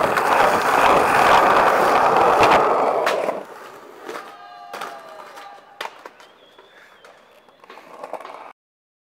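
Skateboard wheels rolling on rough pavement as the board is pushed along, a loud steady rumble with a couple of clicks. After about three seconds it cuts to a much quieter background with a few faint short tones and clicks, and the sound stops shortly before the end.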